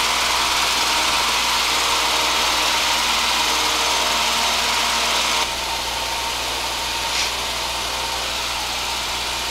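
Piper Pacer's 135-horsepower Lycoming four-cylinder engine and propeller running steadily at go-around power, heard inside the cabin as a dense roar. About five and a half seconds in it drops a little in loudness and holds there.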